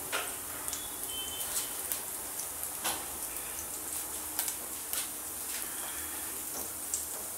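Mustard seeds and cumin seeds frying in hot oil in an aluminium kadhai: a steady sizzle with scattered sharp pops as the seeds crackle.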